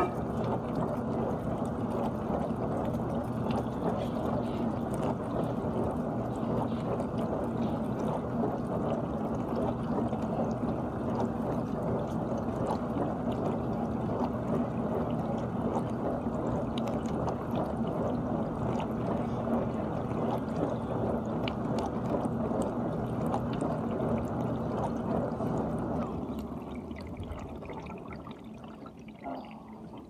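GE dishwasher running its wash: water spraying and sloshing inside the tub over the steady hum of the pump. About four seconds before the end the spraying stops and the sound drops away markedly.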